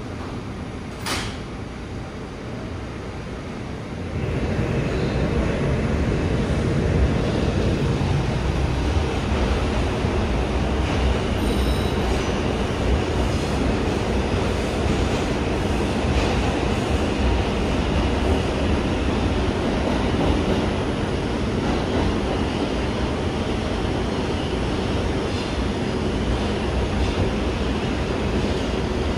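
New York City subway R142 train heard from aboard: a sharp click about a second in as the doors close, then about four seconds in the train starts off and runs steadily through the tunnel with a continuous rumble of wheels on rail.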